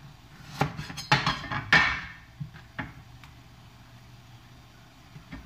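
Chinese cleaver chopping the stalk ends off eggplants on a wooden cutting board: a few sharp knocks of the blade hitting the board in the first two seconds, then a few light taps and handling sounds.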